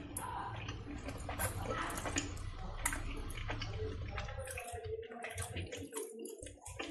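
Syrup-soaked jalebi being pulled apart by hand: a dense run of wet, sticky crackles and squelches as the sugary strands tear. A low hum sits underneath and drops out about two-thirds of the way through.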